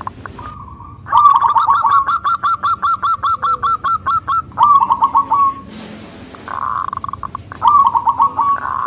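Zebra dove (perkutut) singing: a long run of short staccato cooing notes, about six a second, a shorter run straight after, then a buzzy rattling stretch and another short run near the end.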